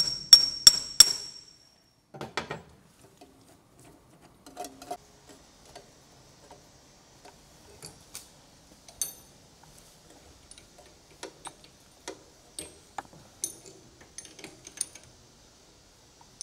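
Metal tools and parts being handled at a milling-drilling machine. A quick run of four ringing metallic taps in the first second is followed by scattered small clicks and knocks of steel on steel.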